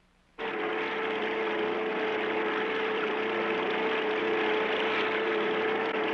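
Cartoon sound effect of the Mach 5 driving underwater: a steady motor hum with one strong held tone and a rushing, watery noise, starting suddenly about half a second in.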